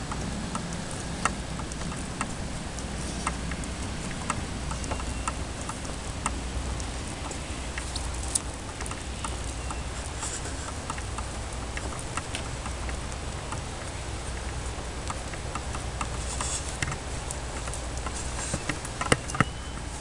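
Low steady rumble of open-air ambience with scattered, irregular sharp clicks of footsteps on a wooden deck, and a short cluster of louder clicks near the end.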